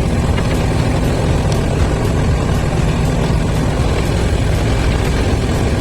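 Moving train: a loud, steady low rumble with faint clicks scattered through it.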